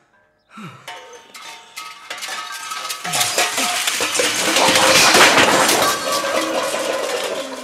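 A large sheet-metal sculpture being struck and knocked over onto a hard floor, clanging and rattling with a metallic ring. It builds to its loudest about five seconds in. A short falling groan comes about half a second in.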